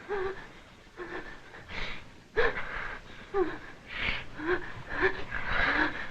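A person gasping and breathing hard in a string of short, ragged breaths, several with a brief whimpering cry, while being beaten.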